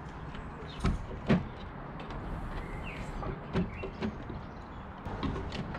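A few short knocks and clicks of hands and a tool working at a motorcycle battery and its terminals, the two loudest about a second in, with smaller ones after.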